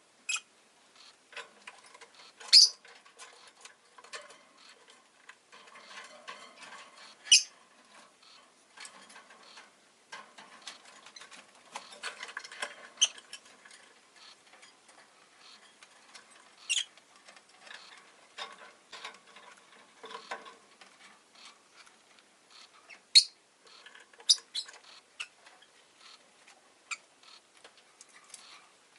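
Rosy-faced lovebird giving about six short, sharp, high chirps spread through the stretch, over a near-constant patter of small clicks and scratchy rustling from the bird busy in its cage.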